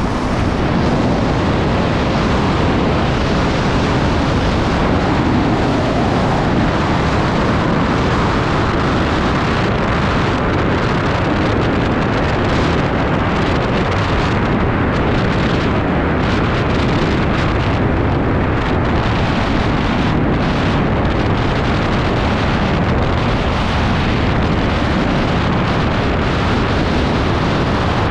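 Loud, steady rush of wind buffeting the microphone during wingsuit flight.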